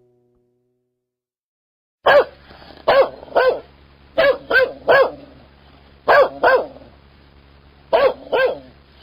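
A dog barking, starting about two seconds in: ten sharp barks in quick groups of three, three, two and two.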